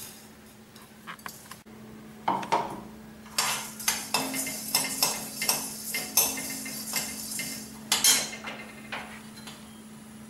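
Metal spatula scraping and clinking against an aluminium kadai as it stirs whole spices dry-roasting in the empty pan, in quick irregular strokes starting about two seconds in. A steady low hum runs underneath.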